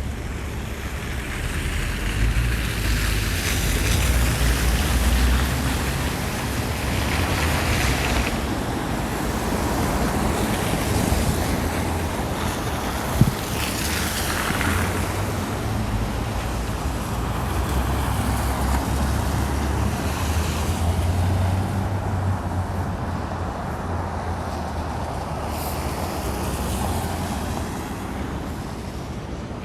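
City traffic passing on snowy downtown streets: car engines rumbling and tyres hissing as vehicles swell past and fade, with wind buffeting the microphone. A single sharp click sounds about halfway through.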